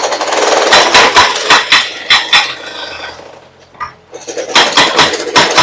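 Hydraulic breaker (chisel head) on a mini excavator hammering concrete in rapid metallic blows, about five a second. It dies away around the middle, stops briefly, then starts hammering again.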